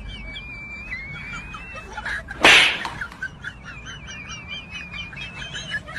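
Bird-like chirping and warbling whistles, with a single loud, sharp hit about two and a half seconds in.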